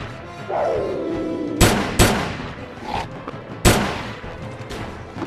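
Three rifle shots over a film score: two in quick succession about a second and a half in, then a third about two seconds later, each trailing off in reverberation.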